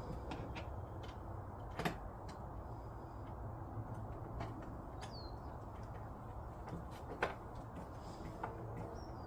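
Scattered light clicks and two sharper knocks as plastic parts of a kids' ride-on car and a screwdriver are handled during assembly, over a steady low hum.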